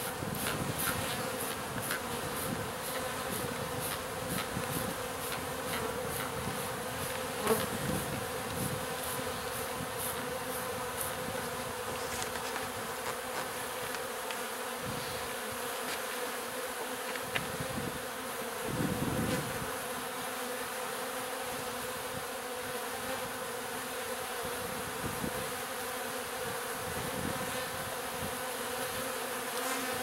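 A honey bee swarm buzzing steadily, a dense hum of many bees disturbed as they are handled out of a wall cavity, with a couple of brief bumps from the handling.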